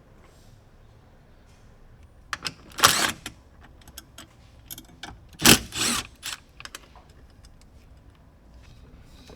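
Irregular clicking and clattering knocks of tools and parts being handled during hands-on work, with two louder knocks about three and five and a half seconds in.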